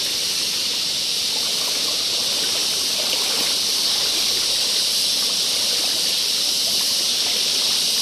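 A steady, high-pitched outdoor hiss that runs without a break or a change in level.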